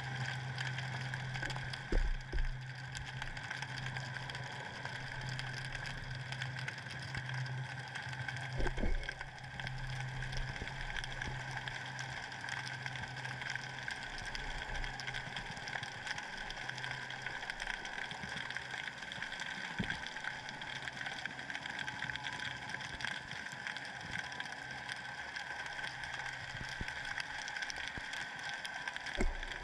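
Underwater noise picked up by a submerged camera: a steady hiss of water with a low hum that fades out about halfway through. Three dull thumps stand out, about two seconds in, near nine seconds and near the end.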